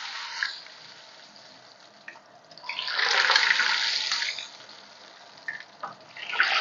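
Raw potato sticks going into hot oil in a frying pan, the oil sizzling up loudly about three seconds in and again near the end as each batch drops in, with a quieter steady sizzle between.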